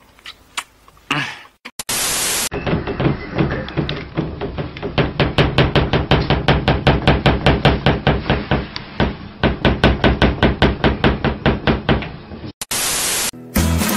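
Rapid, regular knocking on a wooden wardrobe door as a cat paws and rattles it, about six knocks a second at its fastest. A short burst of hiss comes before and after the knocking.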